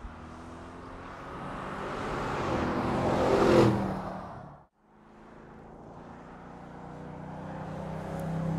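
Bentley Continental GT V8 S's 4.0-litre twin-turbo V8 as the car drives past, growing louder and dropping in pitch as it passes about three and a half seconds in. After a sudden cut the engine is heard again as the car approaches, growing steadily louder.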